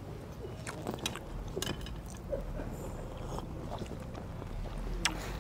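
Eating sounds close to a clip-on microphone: chewing, with scattered light clicks of cutlery and cups on plates over a low rumble.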